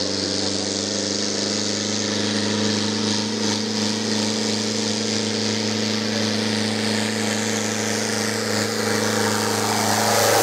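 Valtra Valmet 665 tractor's diesel engine working hard at steady revs, pulling a loaded trailer up a gravel hill. It grows louder near the end as the tractor comes close.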